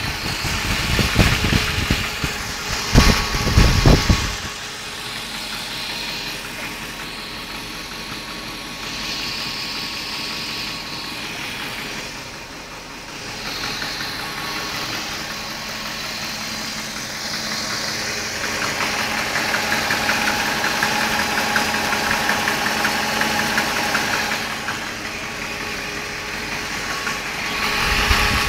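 BMW E38 740i's M60B40 4.0-litre V8 engine idling steadily, with the strange knocking and ticking noise under investigation. A few heavy low thumps are heard in the first four seconds.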